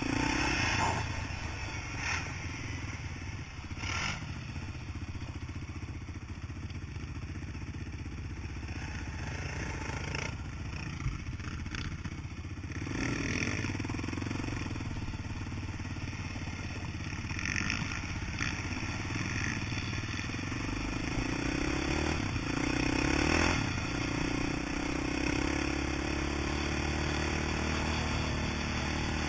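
Honda TRX450R quad's single-cylinder four-stroke engine running under way, its pitch rising and falling with the throttle. Now and then there are brief knocks and rattles from the machine over bumps.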